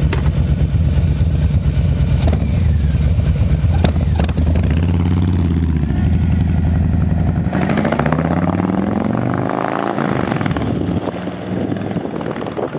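Harley-Davidson Milwaukee-Eight V-twin on a 2020 Low Rider S, breathing through Vance & Hines slip-on mufflers, running at a steady low speed with a few sharp clicks, then rising in pitch as it revs up about halfway through.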